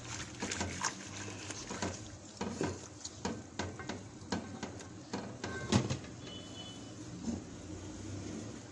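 A whisk stirring thick simmering milk kheer in a steel pot, clicking and scraping against the metal in an uneven run of taps, one louder knock about six seconds in, then settling to a quieter scrape.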